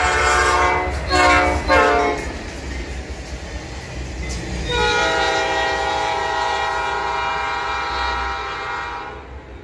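Norfolk Southern GE C44-9W diesel locomotive's air horn sounding. A long blast ends about a second in, two short blasts follow, and a long steady blast starts about five seconds in and fades near the end. The passing train's wheels rumble on the rails underneath.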